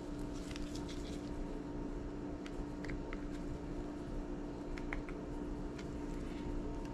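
Faint small clicks and ticks of a pry tool working at the clips of an iPod classic's case, over a steady low electrical hum.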